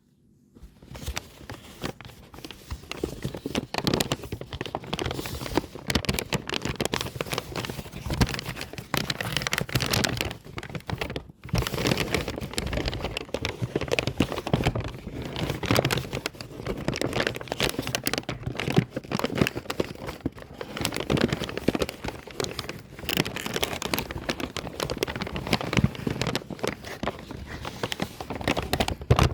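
Paper bag being crumpled by hand: dense, irregular crackling and rustling, with a short pause about eleven seconds in.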